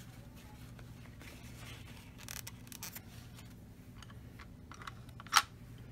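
Small handling noises from dot painting with a dotting tool: faint scrapes and taps over a steady low hum, with one sharp click near the end.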